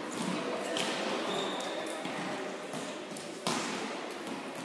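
Echoing volleyball-hall noise: indistinct players' voices and balls bouncing and being hit, with one sharp ball strike about three and a half seconds in.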